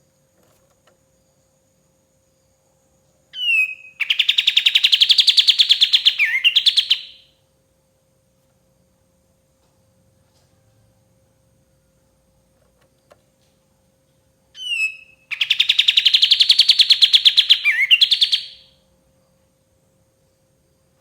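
Kapas tembak songbird singing two loud phrases about ten seconds apart. Each phrase is a short note, then a rapid trill of quickly repeated notes lasting about three seconds, ending in a quick dipping flourish. A faint steady hum runs underneath.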